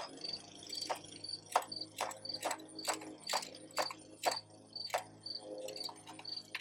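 Crickets chirping steadily in short high pulses, with louder sharp clicks or taps at uneven intervals, about one or two a second.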